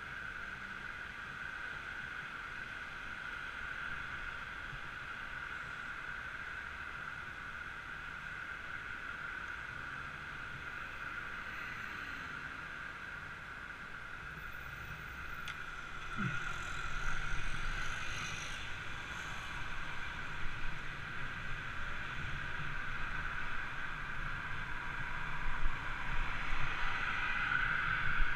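Steady road-traffic noise picked up by a helmet camera while stopped at a junction, turning into louder, gusty wind rush on the microphone once the rider pulls away about sixteen seconds in.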